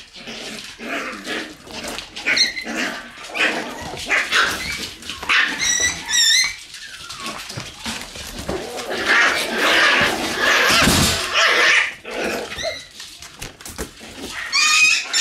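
Shiba Inu puppies yipping and barking as they play-fight. A few high, wavering yelps come about six seconds in and again near the end.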